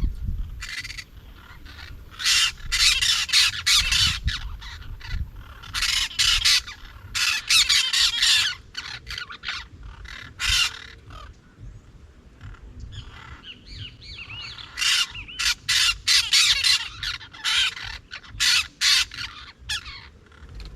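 Parrots squawking: runs of short, harsh calls come in rapid clusters, with short pauses between them.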